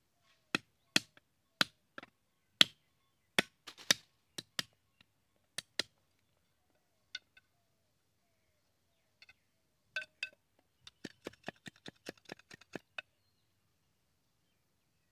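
Machete chopping green bamboo on a wooden stump: about a dozen sharp chops in the first six seconds and a few scattered ones after. About eleven seconds in comes a quick run of lighter knocks and clicks.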